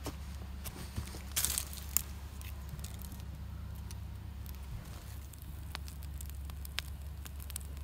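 Small campfire of birch bark and feather sticks crackling, with scattered sharp pops and one louder burst of crackling about one and a half seconds in.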